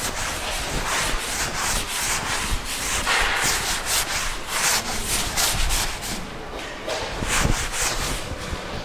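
A chalkboard duster wiping chalk off a blackboard in quick back-and-forth strokes, about three a second: a dry, scratchy rubbing.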